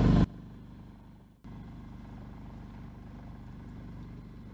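Sailboat's engine running with a steady low drone. A louder burst of the same noise cuts off sharply just after the start, and the sound drops out briefly about a second and a half in.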